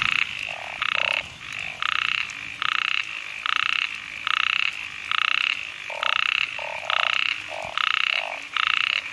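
A small frog calling: short rattling croaks repeated steadily, about one and a half a second. A second frog calls behind it at a lower pitch and an uneven pace.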